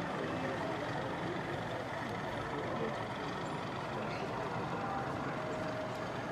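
Steady background din of a busy exhibition hall: a continuous murmur of crowd and machinery with no distinct events.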